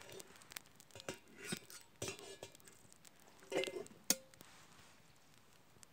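Light metallic clinks and knocks from an aluminium camping kettle, its wire handle and lid rattling as it is handled and lifted off a small campfire, with a louder cluster of knocks about three and a half seconds in and a sharp click just after.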